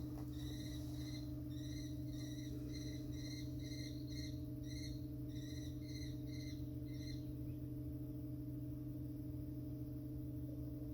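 Pipe organ sustaining a steady held chord of several unchanging tones. A bird gives a quick series of high chirps, about two or three a second, which stop about seven seconds in.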